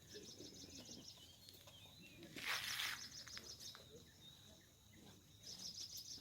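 Quiet outdoor ambience with a fast, rhythmic high-pitched chirping call that stops about a second and a half in and returns near the end. A short noisy swish about two and a half seconds in is the loudest sound.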